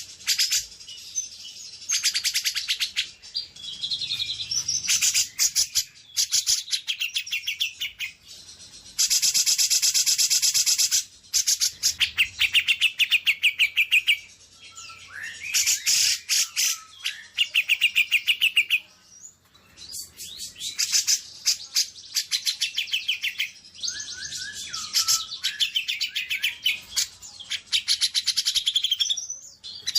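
Songbird song: high-pitched bursts of very fast chattering trills, each lasting a few seconds with short breaks between them, mixed with a few whistled slurs.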